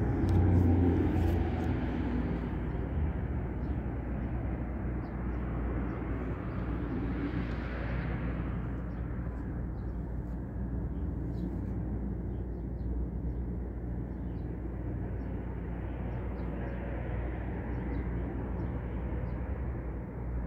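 Steady road-traffic rumble with a vehicle passing about seven or eight seconds in, swelling and fading, and a fainter pass later on. It sounds muffled, with the microphone covered by cloth.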